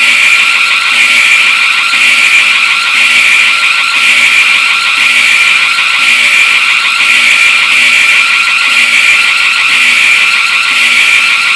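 Loud, harsh emergency alarm tone holding steady, with a faint low pulse repeating under it about every 0.7 seconds.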